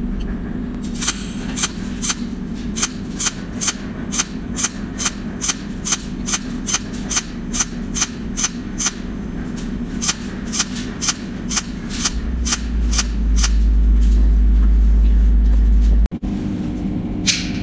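Cold welding machine's tungsten-needle torch firing rapid discharges along a seam in thin metal sheet: a string of sharp snapping ticks, about three a second, over a steady hum. The ticks stop about twelve seconds in, and a deeper steady hum takes over.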